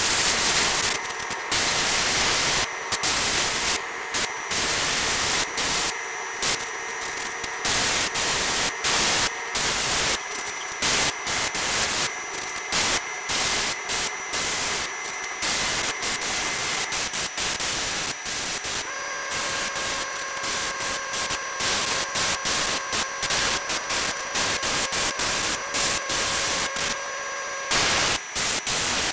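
Gravity-feed airbrush hissing in many short, rapid bursts of air as the trigger is pressed and released, with a few longer sprays, over a faint steady hum.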